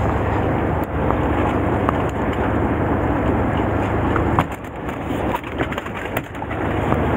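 Steady low rumble of the fishing boat's engine with wind on the microphone. About four seconds in, the rumble drops away under scattered clicks and rustles of a plastic cooler box lid and a plastic bag being handled.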